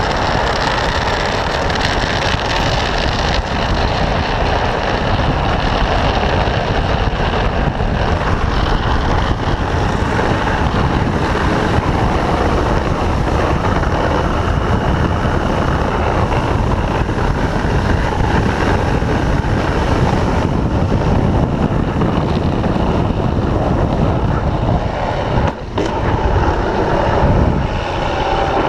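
Drift trike on the move: continuous loud rushing of wind on the microphone mixed with the PVC-sleeved rear wheels sliding on asphalt, briefly dipping about 25 seconds in.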